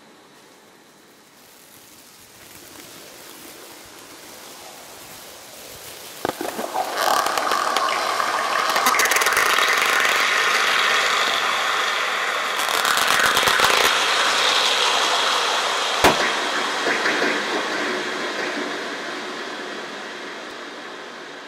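Plastic bag crumpled and rustled right at a microphone and sent through a multi-tap delay, so each crackle repeats. It starts softly, grows into dense crackling with one sharp snap about two-thirds through, then fades away.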